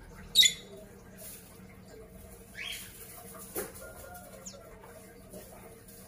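Caged white-eyes (pleci, Zosterops) giving a few short, high chirps, the loudest about half a second in and a falling note a couple of seconds later, with a light tap in between.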